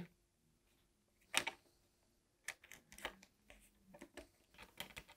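Faint, scattered clicks and taps of a screwdriver on the screws of a plastic terminal block as mains wires are fitted and tightened.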